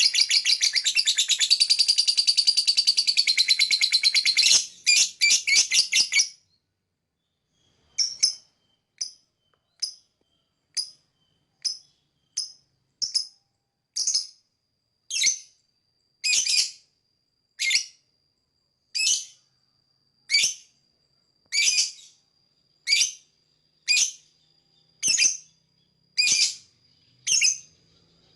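Lovebird giving a long, rapid chattering trill (the "ngekek" call) that breaks off about six seconds in. After a short silence it calls in single high chirps, about one a second.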